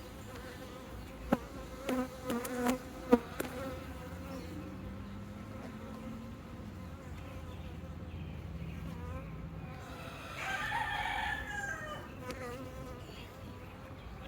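Honeybees buzzing around an opened hive, a steady drone, with a few sharp clicks and knocks in the first three seconds.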